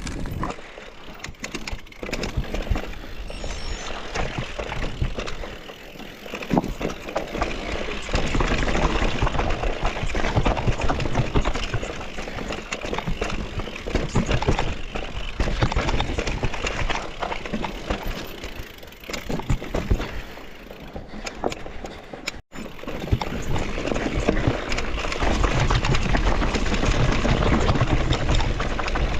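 Mountain bike riding a dirt trail: a continuous, uneven rush of tyre and riding noise that swells and eases, with a momentary dropout about two-thirds through.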